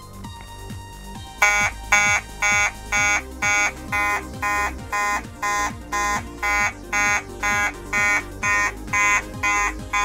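Fire alarm horn sounding in march-time code, starting about a second and a half in: short, even blasts of one harsh pitched tone, about two a second. The horn is switched on and off by a relay driven by an Arduino.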